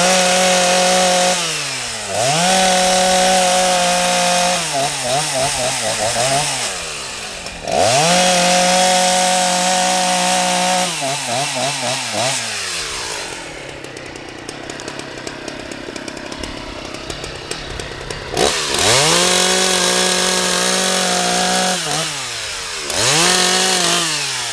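Husqvarna 181 two-stroke chainsaw bucking pine logs. It climbs to full revs and holds there about five times, falling back between cuts, with a longer quieter stretch near idle a little past the middle.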